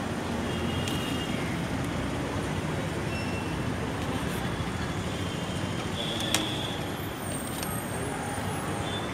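Steady street traffic noise from a busy road, with a single sharp click a little over six seconds in.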